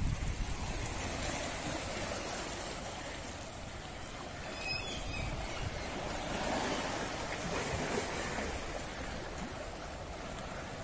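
Small sea waves lapping and washing over a rocky, stony shore in a steady wash, with a brief low rumble at the very start.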